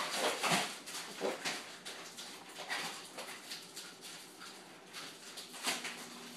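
Ibizan hound whimpering briefly while her claws click and scrabble on a hardwood floor as she dashes about in quick, irregular clatters.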